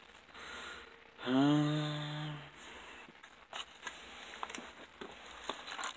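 A man's drawn-out wordless 'hmm' about a second in, then light clicks and rustling as small fishing tackle is handled in a clear plastic tackle box.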